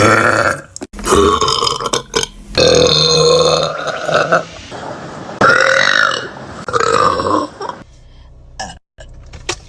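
A run of loud, pitched burps from young women, about five in a row, some drawn out for a second or more, with abrupt breaks between them; quieter after about eight seconds.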